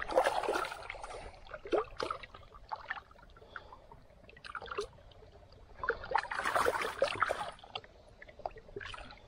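Shallow pond water splashing as a large common carp thrashes and is handled into a plastic tub. The splashing comes in bursts: about a second of it at the start, a short splash near two seconds, and a longer spell about six to seven seconds in.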